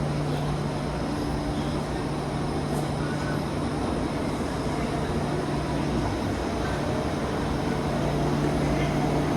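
Steady hum and rumble of a KTX high-speed train at the station platform, growing slightly louder near the end.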